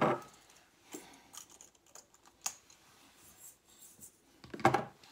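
Light scattered clicks and taps of small kitchen containers and utensils being handled on a stone counter, with a louder short sound near the end.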